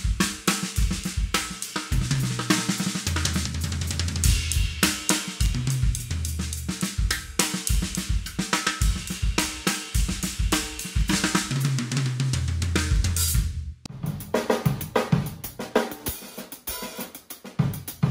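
Drum kit played with sticks in a groove: snare hits, hi-hat and cymbals over kick drum, with low held notes under the first part. This is a custom wood snare being auditioned. About three-quarters of the way through the sound breaks off and the kit playing resumes in a different take.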